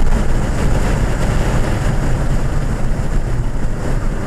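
Inside the cabin of a 2014 Ford Fiesta ST at speed on a track straight: its turbocharged 1.6-litre four-cylinder engine running steadily, under a dense layer of road and wind noise.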